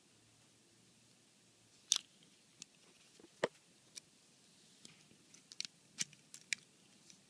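Stainless-steel Leatherman Wingman multitool being handled: about a dozen sharp metal clicks at irregular intervals as its tools are worked open and shut.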